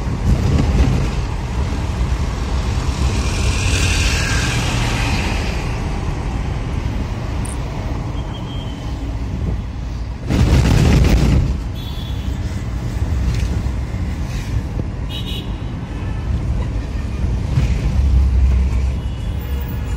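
Road noise heard from inside a moving car: a steady low rumble of engine and tyres, with traffic around. About ten seconds in, a loud rushing noise lasts just over a second.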